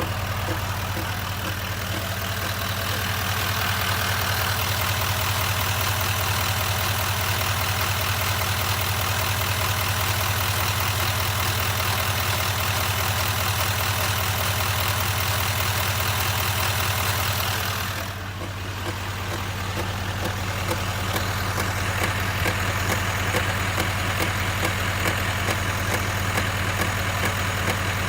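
2019 Chevrolet Silverado 2500 HD's L5P 6.6-litre Duramax V8 turbodiesel idling, with a loud, rapid clicking/tapping from the front of the truck whose cause the owner does not know. The sound dips briefly about 18 seconds in.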